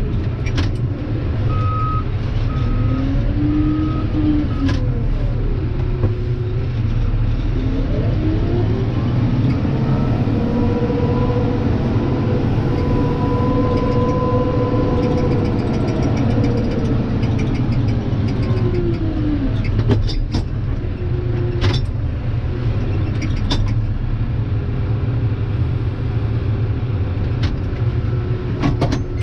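Case IH Farmall 95C tractor's diesel engine running steadily, heard from inside the cab, with its revs rising about eight seconds in, held for several seconds, then falling back. Three short beeps sound near the start, and a few sharp clicks or knocks come in the second half.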